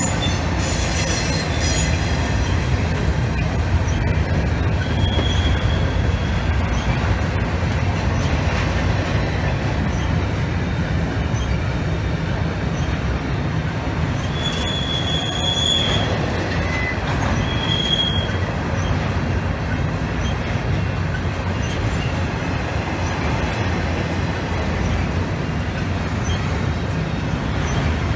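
A train rolling past with a steady rumble of steel wheels on rails, with a few short, high wheel squeals about five seconds in and again around fifteen and eighteen seconds.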